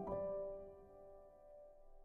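Background music ending: a final chord struck at the start rings on and slowly fades away.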